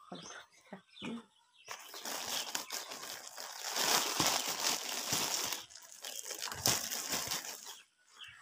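Plastic packaging crinkling and rustling as it is handled and pulled out of a cardboard box, beginning about two seconds in, with a short lull a little past the middle.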